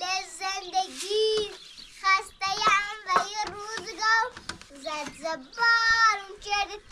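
A young child singing in a high voice: a sing-song tune of short phrases with a few held notes.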